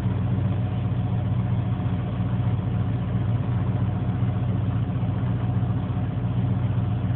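1980 Ford F-100's 302 V8 with a two-barrel carburetor idling steadily, heard from inside the cab.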